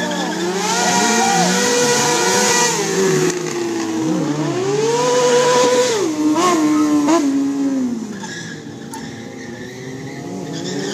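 Motorcycle engines revving hard and accelerating away, the pitch climbing, dropping and climbing again through gear changes, then falling away after about eight seconds.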